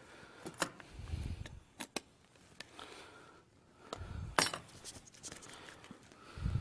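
An opened metal food can and its cut lid being handled: scattered sharp metallic clicks and a few dull knocks, the loudest click about four and a half seconds in.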